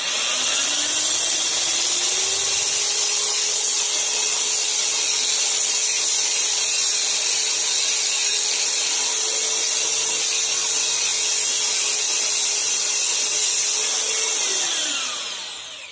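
Electric drill driving a small cutting disc on a mandrel, cutting through a metal nail with a steady high grinding hiss. The motor winds up over the first couple of seconds, holds a steady speed, then winds down near the end.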